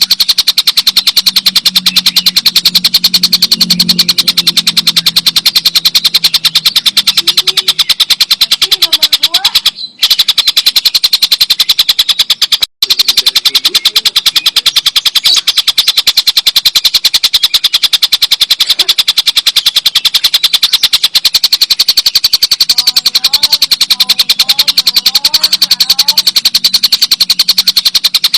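Stork-billed kingfisher giving its long, loud cackling call, a rapid unbroken rattle of notes. It cuts out briefly twice, around ten and thirteen seconds in.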